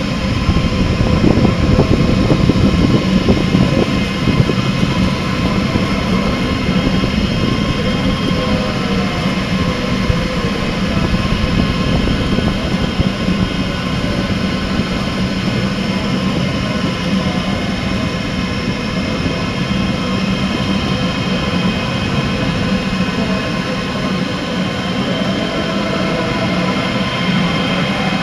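Large Delta WASP 3MT delta 3D printer running a print: a steady whir from the fans and motors of its pellet-extruder head, with several constant tones over a level hum.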